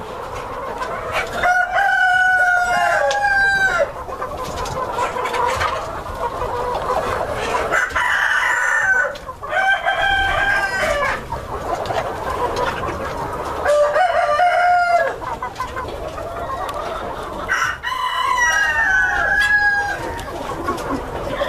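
Silver Spangled Appenzeller Spitzhauben roosters crowing four times, each crow about two seconds long and spaced about five or six seconds apart, over the steady clucking of the flock.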